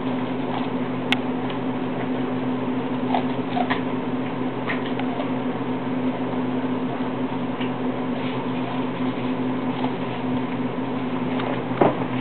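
German shorthaired pointer nibbling kernels off a corn cob held in a hand: scattered small crunching clicks over a steady hum.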